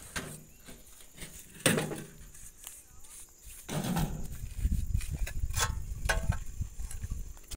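Scattered sharp knocks and clicks, the loudest about two seconds in and a quick run of them near the end. From about four seconds in there is low rumbling wind and handling noise on the phone's microphone while it moves.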